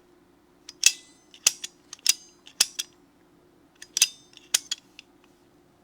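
Facom 501A locking pliers clicking as they are clamped and released: a run of sharp metallic clicks with a brief ring, a pause in the middle, then a few more.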